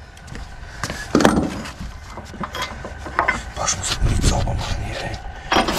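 Metal tools and fittings scraping, clicking and knocking against a truck trailer's wooden deck and its metal floor rail while a load stop is set against a wooden chock, with a sharper knock about a second in and another near the end.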